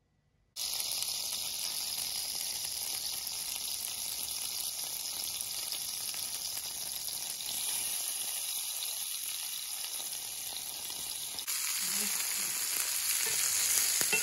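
Egg-and-flour-coated abalone pieces sizzling as they fry in butter in a pan, a steady hiss that starts abruptly and grows louder for the last few seconds.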